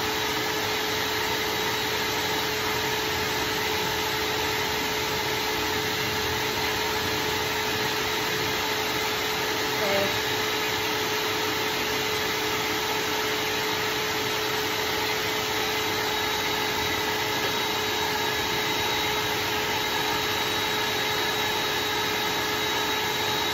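Electric dog-grooming dryer running steadily: a constant rush of blown air with a steady motor whine.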